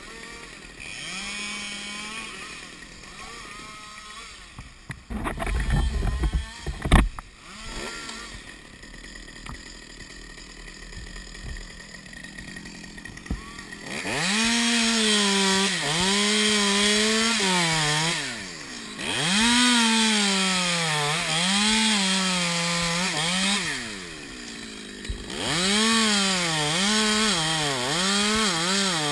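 Top-handle chainsaw running at low speed, with a few heavy knocks from handling. About halfway through it is opened up to full throttle and cuts into a sycamore limb. Its engine note rises and sags as the chain bites, and it eases off twice before cutting again.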